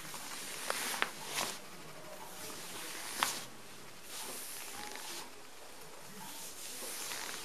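Soft hissing, rubbing sounds of hands stroking and sliding over skin in a neck and shoulder massage, swelling with the strokes, with a few faint clicks near the start.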